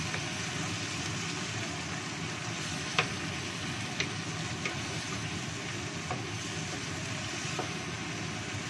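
Fish, green tomatoes and onions sizzling in a wok with a little water while a wooden spatula stirs them. The spatula knocks sharply against the pan a few times, loudest about three seconds in.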